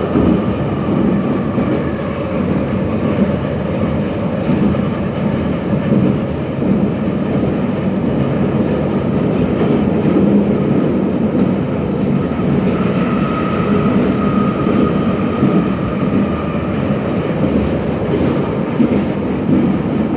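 Soviet 'numbered' series (81-717/714) metro car running between stations, heard from inside the car. A steady, loud rumble of wheels and running gear, with a faint motor whine that grows stronger about two-thirds of the way through.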